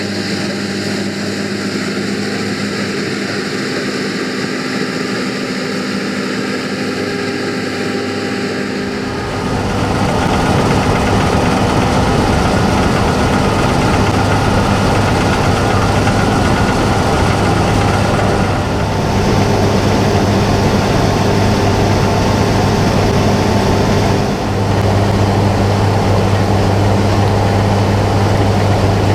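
John Deere S680i combine harvester running steadily in the field, a continuous engine hum with machinery noise. It gets louder and deeper about nine seconds in.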